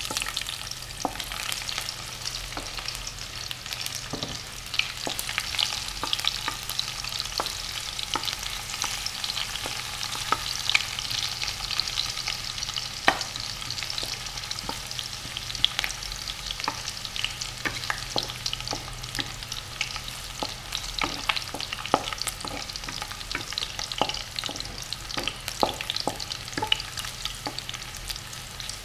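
Garlic cloves sizzling in hot oil in a wok, with frequent short clicks and scrapes of a wooden spatula stirring them against the pan.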